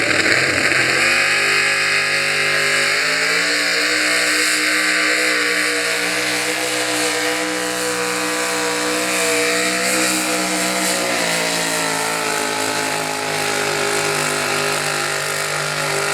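Pickup truck engine held at high revs under heavy load, as in a truck pull dragging a weight sled. The engine note climbs about a second in, then holds high and nearly steady, wavering slightly.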